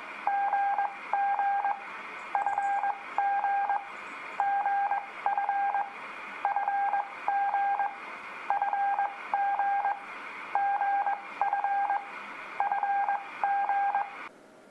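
Morse code (CW) practice tone, a single steady beep keyed on and off in dits and dahs, sending the beginner letters F and G. The characters come in pairs, about one pair every two seconds, over a faint steady hiss.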